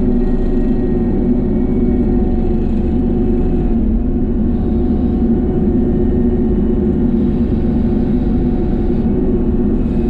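Small excavator's engine and hydraulics running steadily under load, driving a 42-inch Bushmaster bush-hog cutter head: a constant drone with a steady whine over it.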